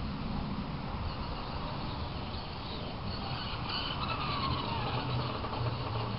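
Tamiya Blackfoot RC monster truck running: the whine of its brushed electric motor and gearbox with tyre noise, over a steady low hum. About four seconds in the whine falls in pitch as the truck slows.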